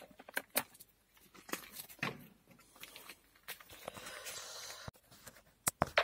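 Scattered light clicks and knocks, with a stretch of rustling about three and a half seconds in: handling noise from parts and cloth being moved near the microphone. No motor is running.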